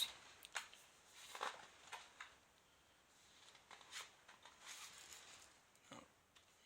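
Near silence with faint, scattered rustles and light taps of paper being handled.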